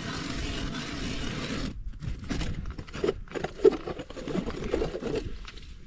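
A steady hiss that cuts off suddenly just under two seconds in, followed by irregular crackling and crunching as gloved hands handle a just-caught fish and work the jig out of its mouth.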